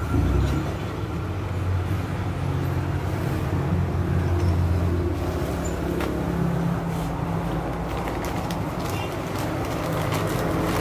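Steady low engine hum of vehicle traffic. In the second half, plastic bag wrapping crinkles in short bursts as it is handled.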